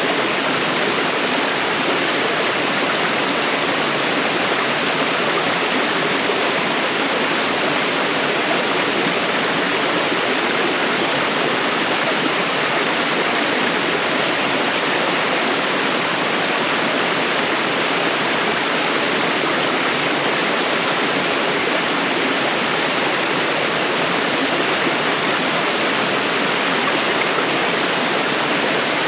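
Waterfall and its stream rushing: a steady, unbroken rush of falling water.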